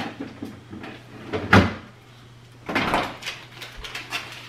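A refrigerator door shut with a thud about a second and a half in, then a second, longer burst of kitchen handling noise about three seconds in.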